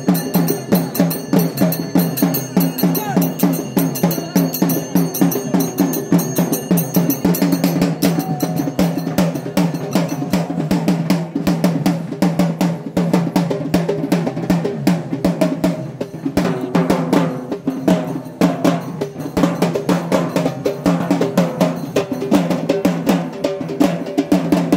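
Procession drums playing a fast, dense rhythm without a break.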